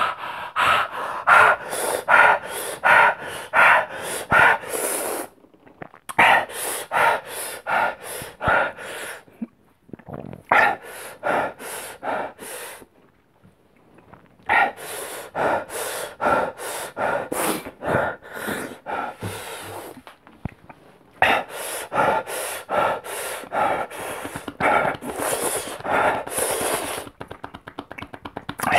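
A man panting hard through his open mouth, quick loud breaths about two a second in runs broken by short pauses, from the burn of the Paqui One Chip Challenge chip.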